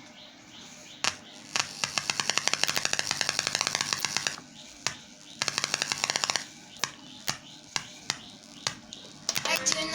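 A series of sharp clicks, some single and some in fast rapid runs, then music starting near the end.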